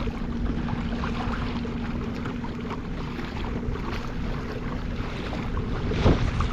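Wind buffeting the microphone on an open kayak, with water slapping against the hull, and a faint steady hum over the first couple of seconds. A louder knock or splash comes near the end.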